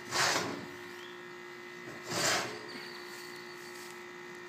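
Expanded-metal steel grate of a roasting box slid along its metal rails: two short scrapes about two seconds apart, over a steady faint hum.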